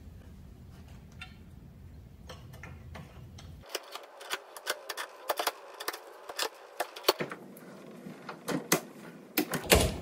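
Light hammer taps and metal clicks as a frozen bronze oil-infused bushing is tapped into a motorcycle swing arm's pivot, the arm clamped in a bench vise. The taps come irregularly, a few a second, starting about two seconds in and growing louder and closer together near the end.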